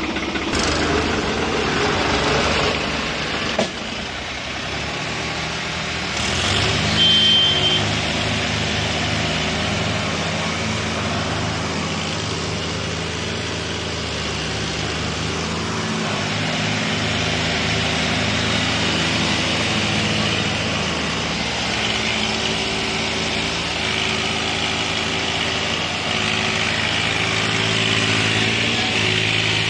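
New Holland 3630 and John Deere 5210 tractor diesel engines running hard, rope-hitched to haul a loaded sugarcane trolley through deep mud. The engines come up in revs about six seconds in, and their note then steps up and down several times as they strain under the load.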